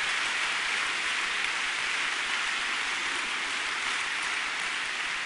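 Large crowd applauding steadily, easing off slightly near the end.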